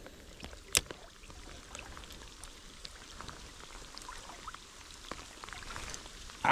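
Rain falling on the surface of a shallow creek, many small drop ticks over the sound of flowing water, with one sharp click just under a second in.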